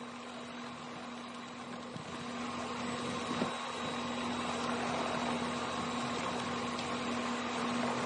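Helicopter engine and rotor noise heard inside the cabin at the open side door: a steady mechanical din with a constant hum, getting louder from about two seconds in.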